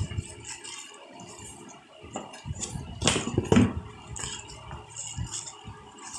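Plastic bubble wrap crinkling and rustling as it is handled and pulled open, with a louder burst of crackling about three seconds in.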